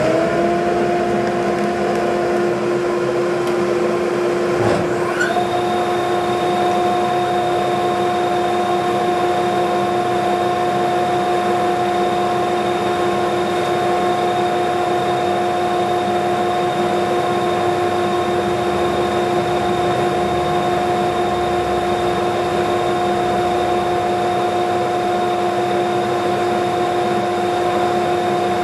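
Shop dust collector and Mikron curved radius moulding machine running together: a loud, steady hum and whine. About five seconds in, a second motor comes up to speed and adds a higher whine, then both run on evenly.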